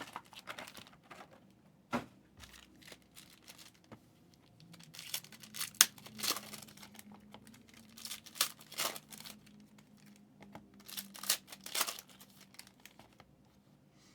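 Trading-card packs and wrappers crinkling and tearing open as cards are handled, in irregular rustles with a sharp snap about six seconds in.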